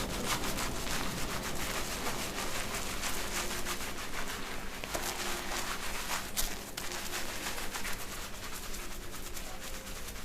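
A barber's fingers scratching and rubbing a shampoo-lathered scalp during a head massage: a dense, continuous crackly rustle.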